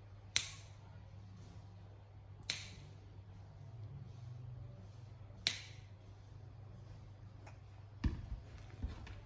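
Dog nail clippers cutting through a Labradoodle's toenails: three sharp snips a couple of seconds apart, then a few duller knocks near the end.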